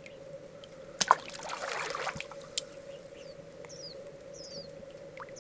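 A sharp click about a second in, then about a second of scraping and rustling and a second click. Small birds then give short, quick falling chirps over a steady faint hum.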